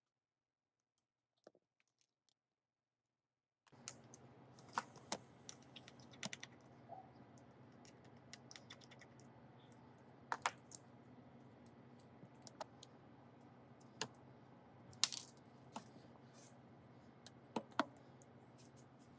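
Scattered light clicks and taps of small repair tools and parts being handled while working on an iPad, over a steady low hum that starts abruptly a few seconds in. The first few seconds are nearly silent apart from a few faint ticks.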